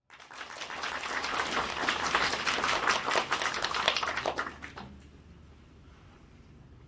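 Audience applauding, a dense patter of clapping that dies away about five seconds in, leaving a faint low room hum.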